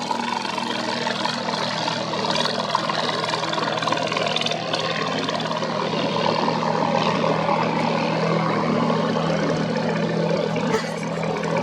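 Engines of motorised racing longboats running hard, a steady drone under the hiss and splash of spray on choppy river water.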